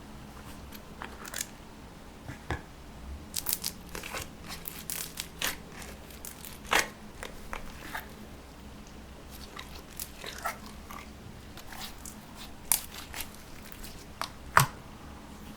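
Slime being kneaded and squished by hand, with irregular small pops and crackles from air pockets in the slime. A few louder pops stand out near the middle and near the end.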